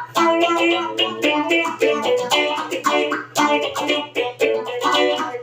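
Electric guitar played through the Joyo Vision pedal's phaser effect: a quick run of picked notes and chord stabs, each ringing on briefly.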